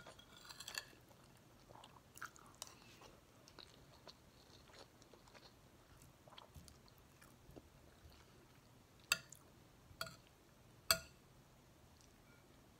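Close-up, faint chewing of rice and chicken, with small mouth clicks. A metal spoon clinks against the bowl, a few times about a second in and then three sharp clinks about a second apart near the end.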